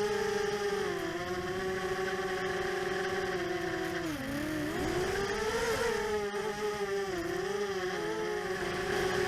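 ImmersionRC Vortex 250 Pro quadcopter's brushless motors and propellers whining in flight, the pitch wavering with the throttle. About four seconds in the whine drops sharply, then climbs back above its earlier pitch before settling.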